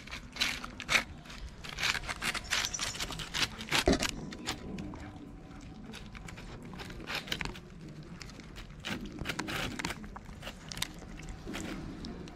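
Cats eating wet meat food out of thin clear plastic trays: irregular chewing and smacking clicks, with the plastic trays crinkling and scraping against the tiles.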